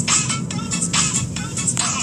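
Music with a steady beat and a melody line, over the low, steady rumble of a car in motion.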